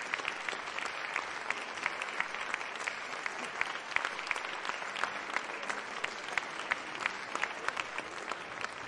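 Audience applauding, a steady patter of many hands clapping, easing off slightly near the end.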